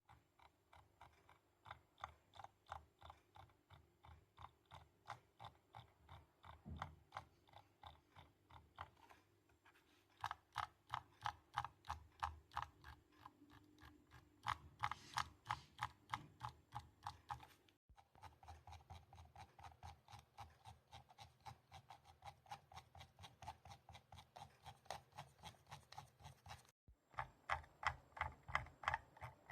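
Logitech G203 Lightsync gaming mouse rattling: a steady run of sharp, evenly repeated clicks, about three or four a second, that breaks off briefly twice. The rattle is the sign of something loose inside the mouse.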